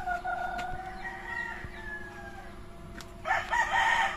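Rooster crowing: a drawn-out call early on, then a louder full crow starting about three seconds in.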